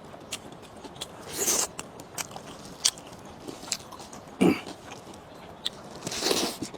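Close-up eating sounds: a person chewing and biting food, with many small wet mouth clicks and a few louder crunchy bursts, about a second and a half in, again past four seconds, and near the end.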